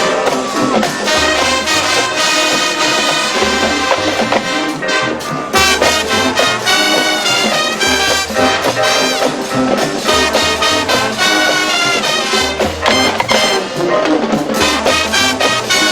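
Marching band playing, the brass section (trumpets and trombones) carrying the tune over a steady low beat.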